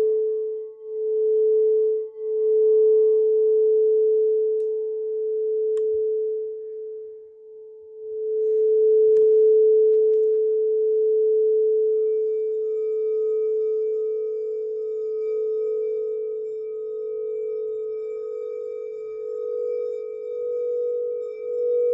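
Frosted quartz crystal singing bowls ringing a single sustained low tone that pulses and wavers. The tone fades away about halfway through, a light tap sounds, and then a bowl is struck and rings out again, with fainter higher tones joining a few seconds later.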